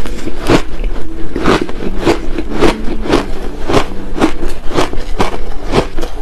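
Crushed ice being chewed close to the microphone, crunching in a steady rhythm of about two crunches a second.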